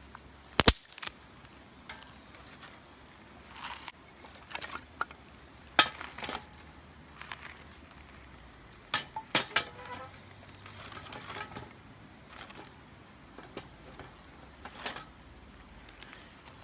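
Scattered light clicks, knocks and clinks of camp gear or utensils being handled, with a few sharper knocks and a brief soft rustle in between.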